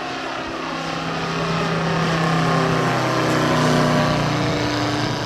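The 400 cc radial engine of a giant radio-controlled Bücker Bü 133 Jungmeister model aircraft, running as the model passes. It grows louder up to about four seconds in, and its pitch falls as it goes by.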